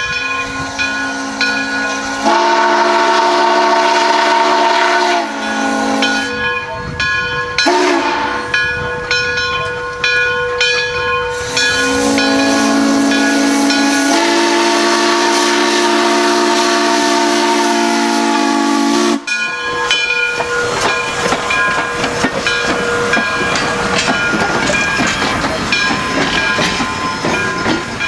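Steam whistle of a 1918 Baldwin 2-10-0 Decapod steam locomotive sounding several chord blasts: a long one, a brief one about eight seconds in, then a long blast of about eight seconds that cuts off sharply. The engine's exhaust and steam hiss follow as it passes close by.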